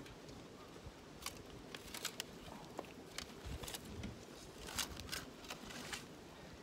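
About ten short scrapes and clicks at irregular intervals over a faint steady background.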